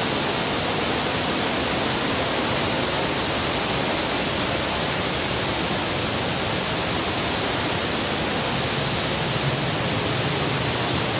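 Steady rush of falling water: an even, unbroken hiss with no breaks or gusts.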